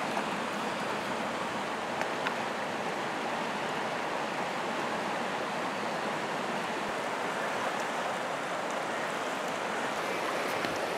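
Steady rush of a shallow river running over stones, even in level, with a couple of faint clicks about two seconds in.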